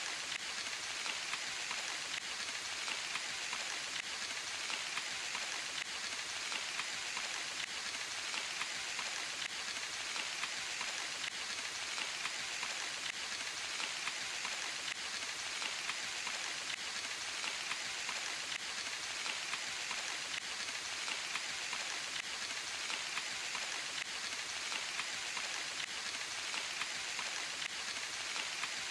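Steady rain falling in a forest: an even hiss of drops with many small patters of drops landing on leaves and other surfaces.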